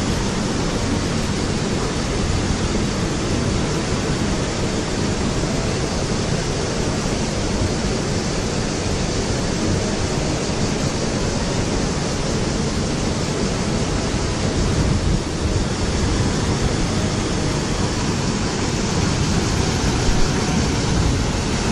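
Steady rushing of a river over rapids and small cascades among rocks.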